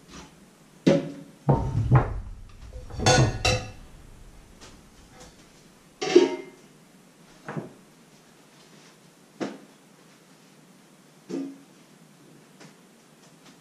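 Metal pots and pans clanking and knocking on a stove as they are handled and stirred: a quick cluster of clanks in the first few seconds, then single ringing knocks every couple of seconds, the loudest about six seconds in.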